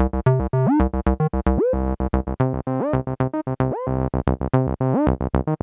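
MAM MB33 analog bass synthesizer, a TB-303 clone, playing a repeating sequenced bassline of short, choppy notes, with several notes gliding up in pitch, the classic acid slide. The waveform is being blended between square and sawtooth with the Wave knob.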